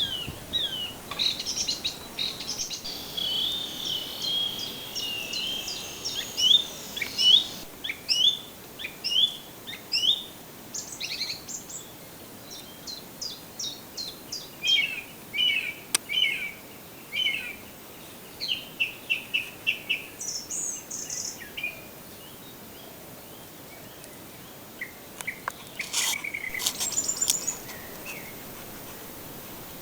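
Songbirds singing: overlapping chirps, quick trills and rapid runs of high notes, with a short lull a little after two-thirds of the way through.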